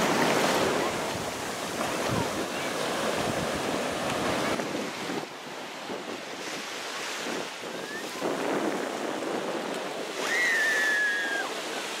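Ocean surf breaking and washing up the beach, a steady rushing wash mixed with wind buffeting the microphone. A brief high-pitched cry rises out of it about ten seconds in.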